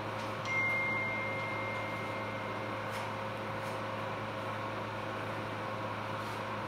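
Steady electrical hum of operating-room equipment, with one steady electronic beep tone that starts about half a second in and lasts about two and a half seconds.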